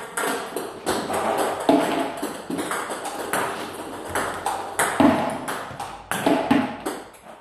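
Table tennis ball struck by a paddle and bouncing on the table, a quick run of sharp pings at about three a second.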